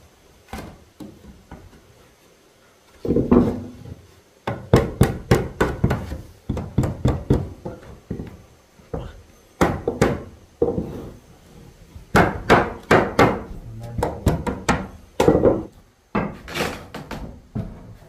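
Hammer striking wood in irregular runs of sharp blows, several a second, beginning about three seconds in, with short pauses between the runs.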